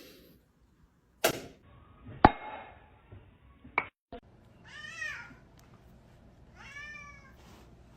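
A cat meowing twice, each call rising then falling in pitch, after a few sharp knocks.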